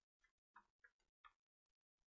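Near silence, broken only by faint scattered ticks.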